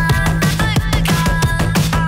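Soundtrack music: electronic dance music with a fast, busy drum beat, a steady bass line and short high melodic notes.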